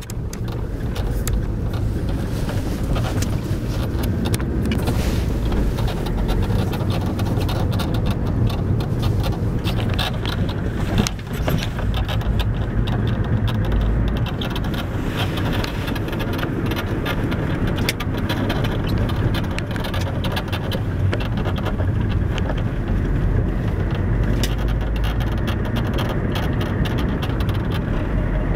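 Lada 2111 suspension strut creaking in short irregular clicks and squeaks over steady low road rumble while the car drives.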